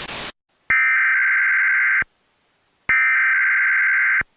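A brief burst of static, then two bursts of Emergency Alert System header data tones: harsh, high, buzzy digital screeches about a second and a half each with a short silence between, starting and stopping with a click. They are the encoded header that opens an emergency alert.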